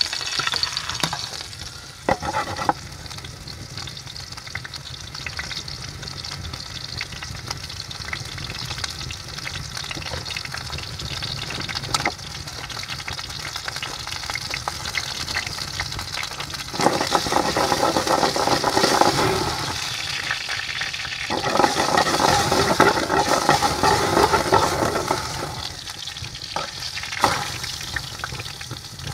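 Beef tenderloin frying in a hot pan, sizzling steadily, with louder, fuller stretches of sizzling in the second half.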